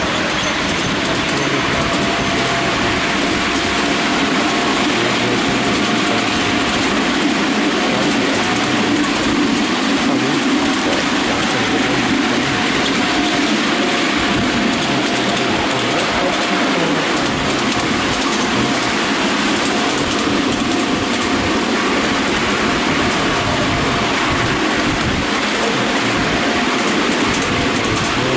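Ride-on miniature railway train hauled by a miniature Class 43 HST locomotive, running steadily along the track and heard from a passenger car: a continuous rumble and rattle of wheels on rail. A faint steady whine runs under it through the first half.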